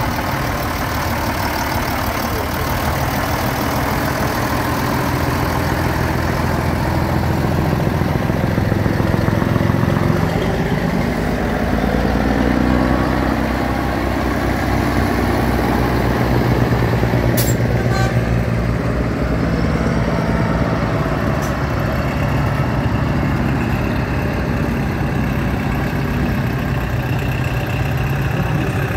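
A heavy vehicle engine idling steadily, with a couple of brief sharp clicks in the second half.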